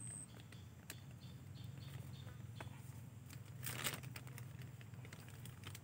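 A plastic bag rustles and crinkles, loudest briefly about three and a half seconds in as a handful of mushrooms is put into it. Scattered small clicks and crackles of handling come before and after.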